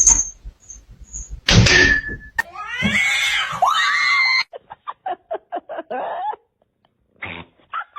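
Cat meowing: a few drawn-out meows that bend up and down, about three seconds in, after a loud knock. A run of short, quick sounds follows.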